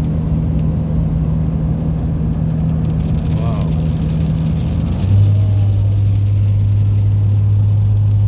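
Car cabin drone of engine and road noise while driving, a steady low hum that suddenly drops in pitch and grows slightly louder about five seconds in.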